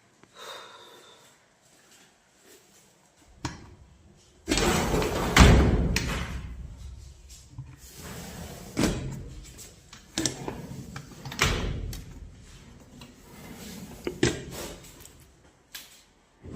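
Steel roofing sheets being handled: a series of knocks and bangs, the loudest a long rattling crash about four and a half seconds in, followed by several sharp single knocks.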